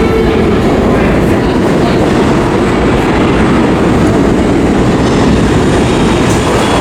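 New York City subway train in a station, a loud steady rumble and rattle of wheels on the track that drowns out a busker's music, which fades in the first moment.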